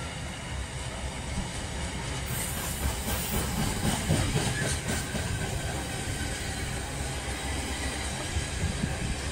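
Empty container flat wagons of a freight train rolling past on the rails, a steady rumble with wheels clacking over the rail joints. A burst of high hiss and rattle rises between about two and five seconds in.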